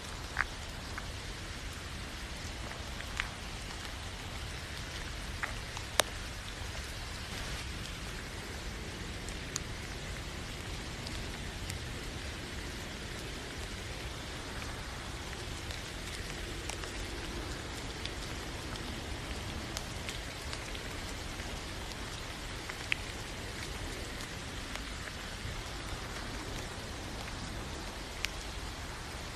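Steady rain falling, an even hiss with a handful of sharp, louder drop ticks scattered through it; the loudest comes about six seconds in.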